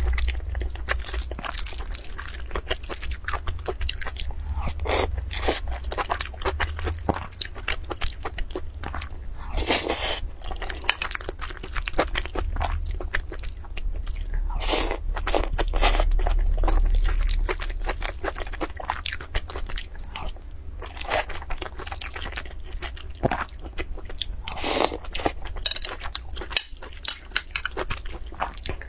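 Close-miked chewing and biting of spoonfuls of food, full of small crisp clicks and crunches that come in denser bursts every few seconds, over a steady low rumble.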